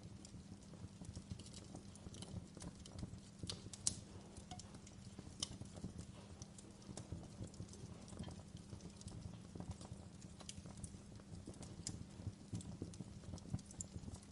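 Campfire crackling: irregular pops and snaps of burning wood over a low, steady rumble of flames, with one sharper pop about four seconds in.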